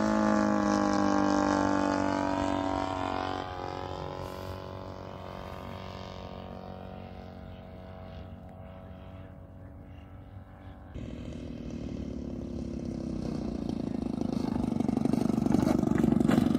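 Radio-controlled scale model aeroplane's engine flying past, its pitch falling as it goes by and fading into the distance. About eleven seconds in the sound jumps, then grows louder again as the model comes low along the runway.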